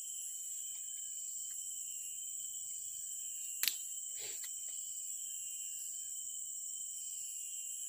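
Steady high-pitched insect chorus drones on without a break. About three and a half seconds in there is a single sharp click, followed at once by a short falling note.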